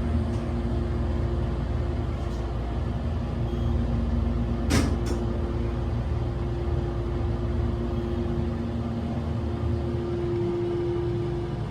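Oracle hydraulic elevator running upward, heard from inside the cab: a steady low rumble with a steady two-tone hum as the hydraulic pump drives the car up. A sharp double click comes about five seconds in.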